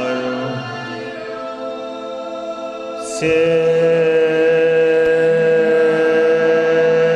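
A group of voices chanting together on one long held note. About three seconds in the chant breaks for a quick sharp breath, then starts again louder on a new steady note.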